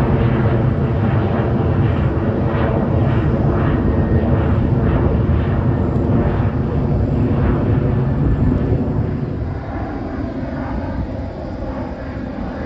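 Twin-engine jet airliner climbing out after takeoff, its turbofan engines making a loud, steady low rumble with a layer of engine tones over it. The sound eases off somewhat about ten seconds in as the jet draws away.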